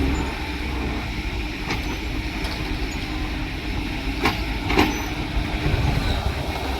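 Heavy construction machine engine running steadily with a low rumble. A few sharp knocks come through, one early and two close together past the middle.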